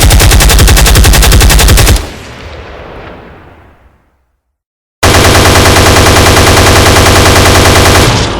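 Automatic machine-gun fire: a rapid burst that stops about two seconds in and echoes away, then after a short silence a second long burst of about three seconds.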